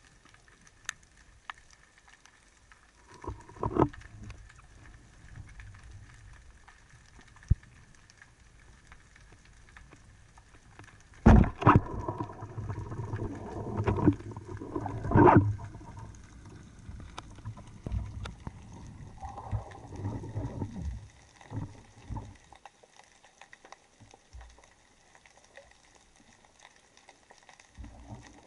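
Underwater speargun shot: a sharp crack about eleven seconds in, followed by several seconds of knocks and rattling from the shaft and line, over faint bubbling water. Lighter clicks and knocks come earlier.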